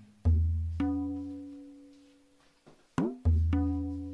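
Background music: deep, sharply struck notes that ring and fade, a low note followed by a higher one, with a short falling slide before the pattern comes again.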